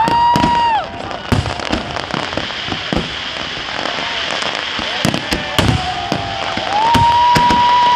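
Fireworks display: a dense run of sharp bangs and crackles from bursting shells. Twice, a steady high whistling tone is held over them, briefly at the start and for over a second near the end.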